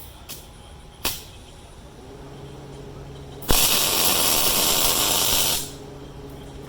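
Electric arc welder humming, then a single weld of about two seconds on the cast iron engine block: a loud crackling hiss that starts sharply and cuts off, with the welder's hum going on after it. Two light clicks come before it.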